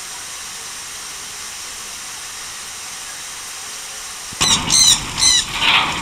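Several shrill screeches from a parakeet in quick succession, starting about four and a half seconds in, over a steady background hiss.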